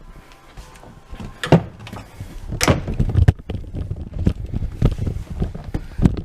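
Knocks, clunks and rubbing from an old dishwasher and its fittings being handled, with sharp bangs about a second and a half in, near three seconds, and just before the end.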